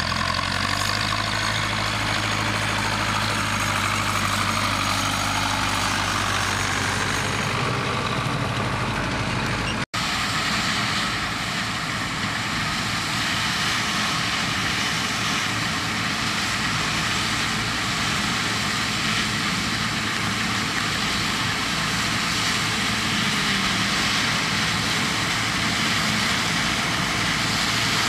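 Zetor tractor diesel engine running steadily as it pulls a loaded trailer over stubble. After a cut about ten seconds in, a combine harvester runs as it harvests rapeseed, a steady broad machinery drone.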